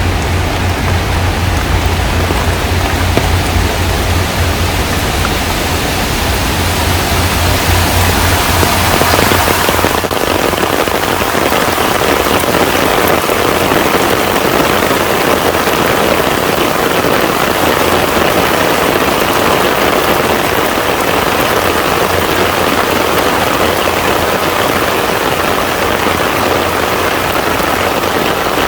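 Heavy rain falling on a pond, a dense, steady patter of drops on the water. For the first third a low rumble sits beneath it and cuts off suddenly.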